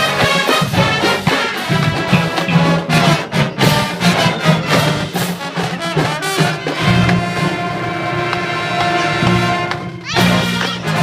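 Marching band brass and drums playing a funk medley, with punchy rhythmic brass hits over the drums. About seven seconds in the band holds a long sustained chord, breaks off briefly near the end, and comes back in with the rhythmic playing.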